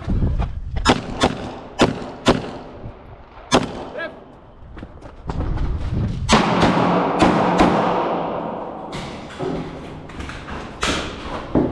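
Pistol shots fired during a shooting competition: a run of sharp reports, several in quick succession in the first few seconds and more spread through the rest.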